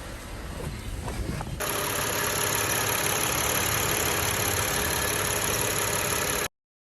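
Car engine running, from a car being checked for a cylinder 2 misfire (code P0302). About a second and a half in, a much louder steady rushing hiss suddenly starts over it, then everything cuts off abruptly shortly before the end.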